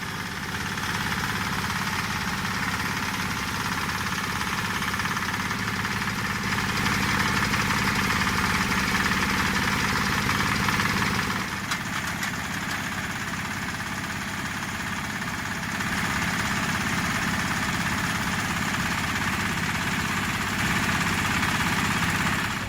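Water-well drilling machine running steadily with a continuous mechanical drone; it drops in level a little past halfway and picks up again a few seconds later.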